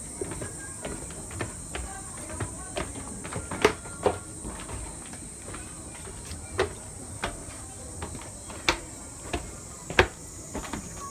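Footsteps knocking on wooden stairs and decking, irregular hollow thuds, a few louder than the rest, over a steady high-pitched insect drone.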